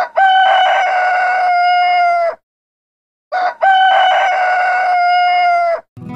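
Rooster crowing twice, each crow a long call of about two and a half seconds, with about a second's pause between them.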